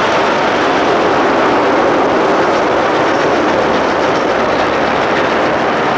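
C&O 614T, a 4-8-4 steam locomotive, and its train passing close at speed: a loud, steady roar of rushing noise with no letup.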